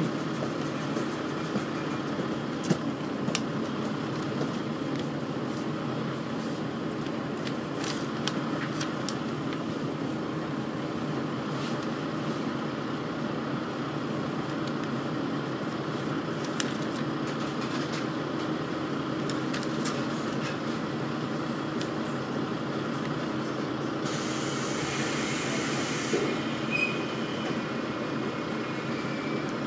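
Diesel railcar's engine idling steadily, heard from inside the cabin while the car stands still. A few faint ticks are heard, and about 24 seconds in comes a hiss lasting about two seconds.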